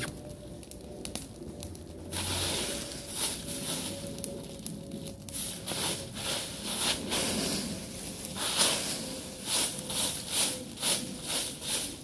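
Stick broom sweeping dry leaves over rocky ground: scratchy rustling strokes, coming quicker in the second half at about two a second.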